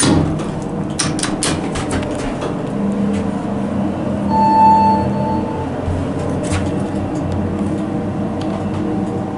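Montgomery hydraulic elevator car running, with a steady hum throughout. In the first second or so there are a few sharp clicks as the cab's metal phone cabinet door is handled, and about four seconds in a single chime sounds for about a second.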